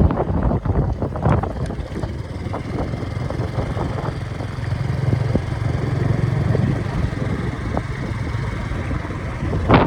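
A vehicle engine running with a steady low rumble, with scattered short clicks and knocks.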